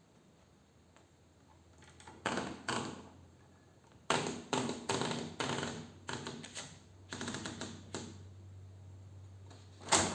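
1952 Hermes Baby portable typewriter being typed on: two key strikes about two seconds in, then a quick irregular run of strikes, and a single loud sharp clack near the end.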